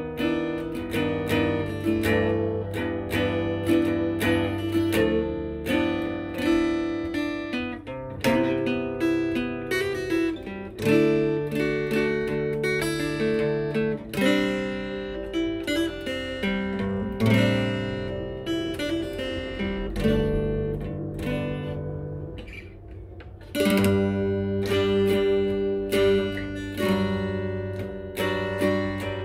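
Acoustic guitar being played, plucked notes and chords ringing one after another. About three-quarters of the way through, the notes die away for a couple of seconds before the playing picks up again.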